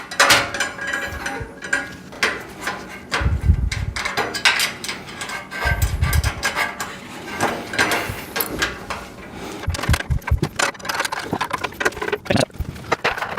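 Metal rack parts being handled and fitted together: irregular clicks, clinks and knocks of metal on metal, with two dull low thumps about three and a half and six seconds in.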